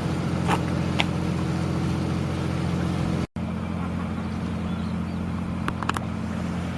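Boat engine idling with a steady low hum, with a few light clicks over it; the sound drops out for an instant about halfway through.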